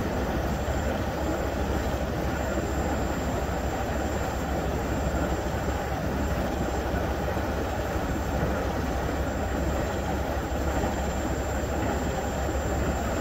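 Fuel tanker truck running its offload pump, a steady low mechanical drone as fuel is pumped out through the hoses.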